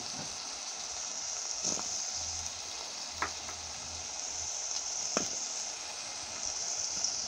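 Diced onion, tomato, carrot, green beans and pumpkin frying in a little oil in a metal pan: a steady sizzle.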